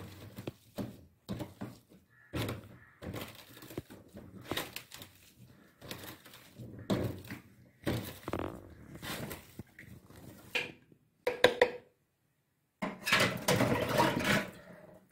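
Wire potato masher pressing boiled potatoes in a stainless steel bowl: repeated uneven thuds and scrapes as the masher hits the potato and the metal bowl. A brief silent break comes about twelve seconds in, followed by a denser run of mashing.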